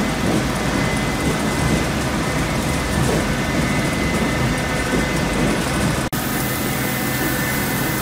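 Sawmill log-deck machinery running: the conveyor chains and rollers moving logs give a steady, dense clatter over a low rumble. The sound cuts out for an instant about six seconds in.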